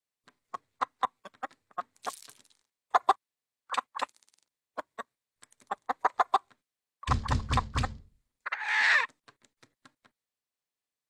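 Cartoon rooster sound effects: a run of quick, irregular pecking knocks and clucks, a heavier thump about seven seconds in, then a short squawk.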